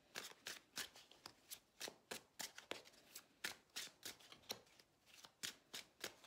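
Tarot deck being shuffled by hand: a faint, quick run of soft card snaps, about three or four a second.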